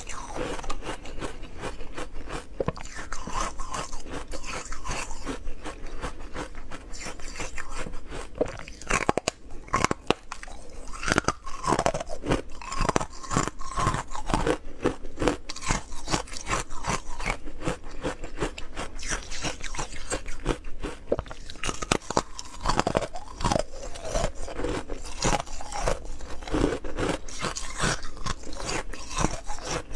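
Close-miked crunching of hard frozen ice discs being bitten and chewed: many sharp cracks and crunches in quick succession.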